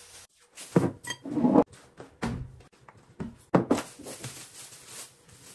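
Plastic bags rustling and crinkling as rolled rice noodles are unwrapped by hand, with several sharp knocks and scrapes, the loudest about a second and a half in.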